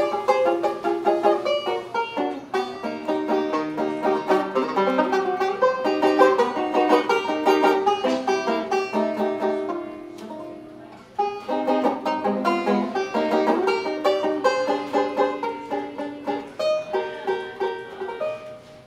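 Four-string plectrum banjo played solo with a pick, a quick run of picked notes. The notes ring away to a brief lull about ten seconds in, start again with a sharp attack, and die away near the end.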